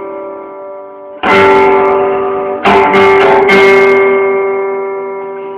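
Guitar strumming chords: one strum just over a second in, then a quick run of strums around three seconds in, each chord left to ring and slowly fade.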